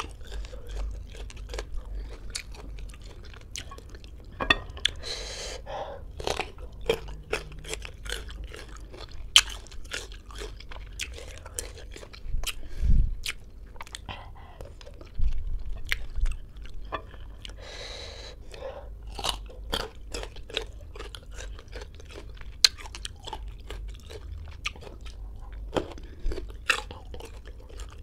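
Close-up chewing of crisp green ambarella fruit, with irregular sharp crunches, several a second.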